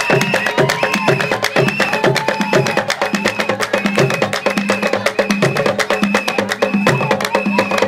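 Gambian traditional percussion music: rapid, dense wooden-sounding strikes with a short high note repeating steadily about every half second over a steady low tone.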